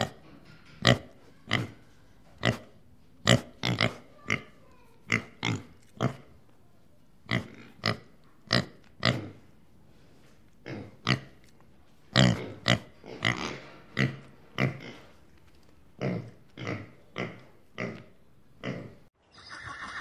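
Pigs grunting: short, loud grunts repeated about once or twice a second, some coming in quick pairs, with a few brief pauses.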